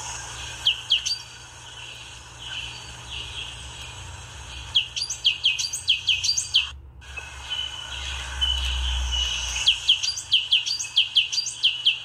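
A small bird chirping in three bursts of quick, sharp, falling high notes, over a steady high-pitched buzz. The sound cuts out completely for a moment about seven seconds in.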